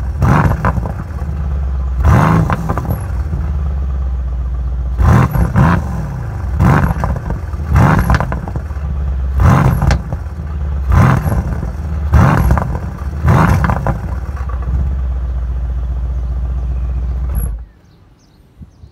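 Mercedes-AMG C63 S twin-turbo V8 through its factory performance exhaust, idling and blipped to short, sharp revs about ten times. The engine is switched off about 17.5 seconds in and the sound cuts out suddenly.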